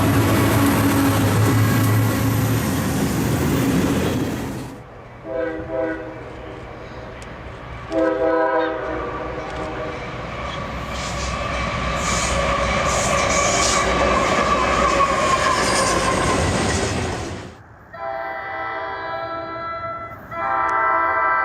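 Diesel locomotive multi-chime air horns in several cut-together clips. A train passes close with its horn sounding, then two short horn blasts follow. A long stretch of train rumbling past comes next, and near the end two long horn chords sound with a brief break between them.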